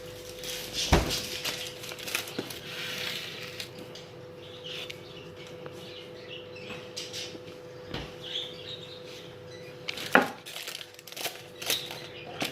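Kitchen utensils and dishes clinking and knocking, with a sharp knock about a second in and another near the end. A faint steady hum sits underneath.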